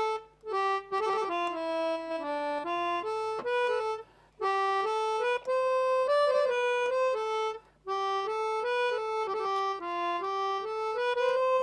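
Melodica blown through a flexible mouthpiece tube, playing a solo single-note melody of held, stepping notes in phrases, with short breaks between phrases at about 4 and 8 seconds in.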